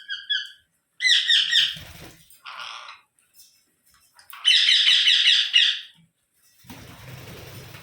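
Rose-ringed parakeets screeching: two loud bursts of rapid, repeated harsh calls, about a second in and again about four and a half seconds in, with a rougher squawk between them. Near the end a rustling noise takes over.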